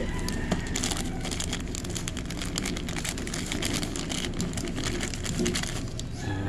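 Thin plastic bag crinkling and rustling in the hands as a new gear is unwrapped, with irregular crackles throughout, over a steady low background rumble.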